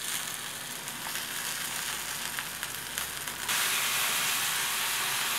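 Chicken breasts frying on a ridged grill pan: a steady sizzling hiss with small crackles, which turns suddenly louder about three and a half seconds in.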